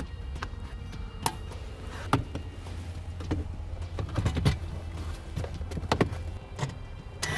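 Plastic under-dash trim panel being handled and pressed back into place: a few scattered clicks and knocks as its clips seat, over a steady low hum.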